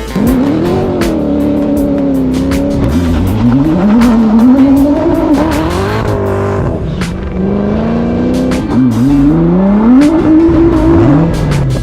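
Ford GT engine through a straight-piped sports exhaust, accelerating hard through the gears. The pitch climbs and then drops sharply at each gear change, several times over.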